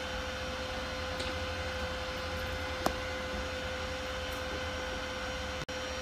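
Steady background hum and hiss with a constant tone, and one short click about three seconds in.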